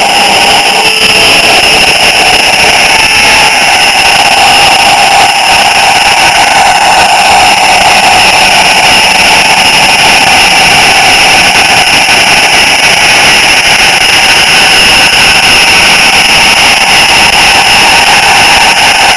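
Model train running along the track, heard up close from a small camera riding on the train: a loud, steady mechanical whir with several high held whines from the drive and wheels.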